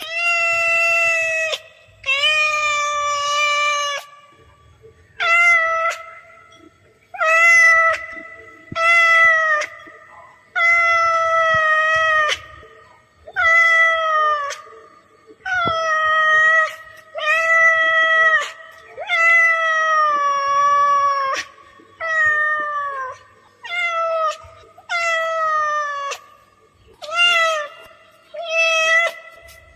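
A cat meowing over and over: about fifteen long meows, each a second or two long with short pauses between, many of them falling in pitch at the end.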